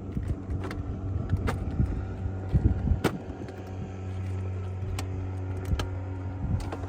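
Hard plastic tackle boxes and lures clicking and knocking as someone rummages through a boat's tackle storage, with sharp clacks every second or so over a steady low hum.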